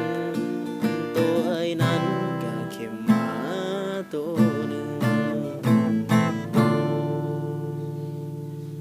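Closing bars of the song on acoustic guitar: strummed chords, then a final chord about six and a half seconds in that rings on and slowly fades.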